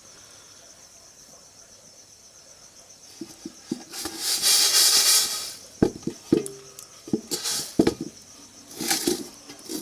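Dry jasmine rice rattling in a hot metal pot, with a scraping rush and several sharp clicks and knocks against the pot starting about three seconds in, over a steady high insect chirring.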